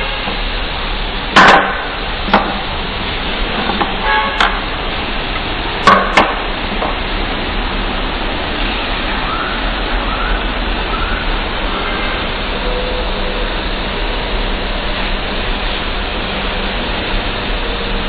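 A handful of sharp knocks and clacks in the first six seconds, two of them close together near six seconds, over a steady hiss and low hum.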